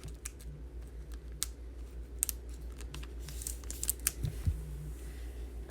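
Scattered light clicks and faint crinkles of trading cards and plastic card holders being handled on a table, over a steady low hum.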